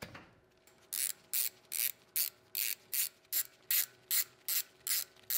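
Hand ratchet with a hex bit clicking in about a dozen even strokes, roughly two and a half a second, starting about a second in, as the Allen-head screws of a manual locking hub are run in.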